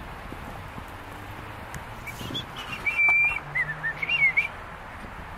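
A short run of clear whistled notes about two seconds in: one held note, then a few quick rising and falling ones, over a steady background hiss.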